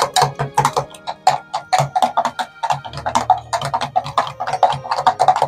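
A metal spoon clicking rapidly and irregularly against the sides of a glass measuring jug while stirring a runny egg-and-milk sauce. Background music with a steady low beat plays under it.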